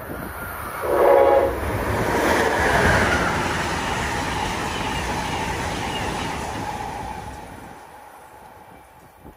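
Train sounding a short horn blast about a second in, then passing by, its noise swelling and fading away near the end.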